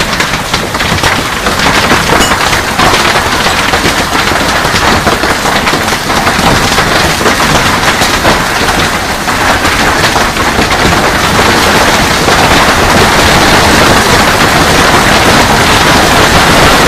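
Hail pelting down hard: a loud, dense clatter of countless hailstones striking the ground, patio and pool, growing a little louder in the last few seconds.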